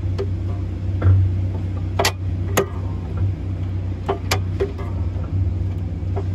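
Sharp, irregular clicks and knocks from an Eaton Solo self-adjusting clutch's release mechanism as the hydraulic clutch pedal is pushed in and out, the clutch self-adjusting after its wear indicator was reset. A steady low hum runs underneath.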